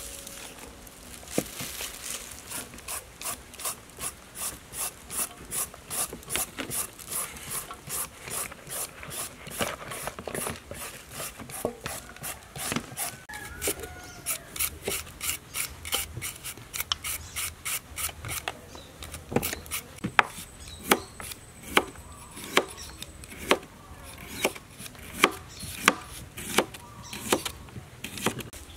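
Hand shredder rasping green papaya and carrot into thin strips, in quick repeated strokes about two to three a second. In the last third the strokes come slower and louder, with a sharp edge to each.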